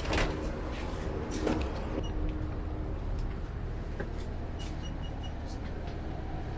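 Bus engine idling with a steady low rumble, with two sharp knocks in the first second and a half and four quick high-pitched beeps about five seconds in.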